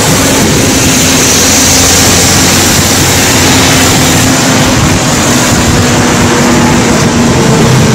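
Loud, steady rushing of wind and vehicle noise on the microphone, with a faint low hum underneath.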